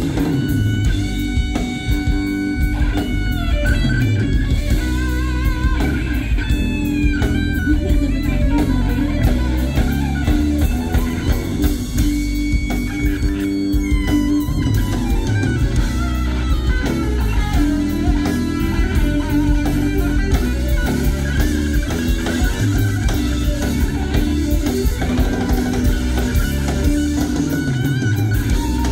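Live rock band playing an instrumental passage: electric guitar over bass guitar and a drum kit, with a melody line whose notes bend and slide.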